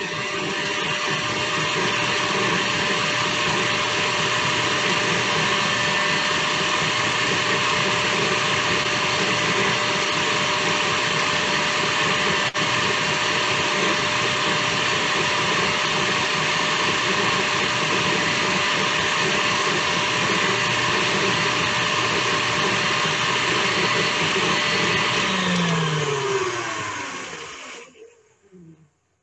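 Electric mixer whipping a shea butter lotion mixture, running steadily at one speed. About 26 seconds in it is switched off and its whine falls in pitch as the motor winds down.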